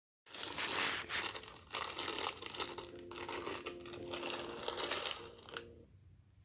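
Rustling, crinkling noise in uneven surges, like a phone being handled and rubbed near its microphone, with a faint low steady tone through the middle; it stops shortly before the end.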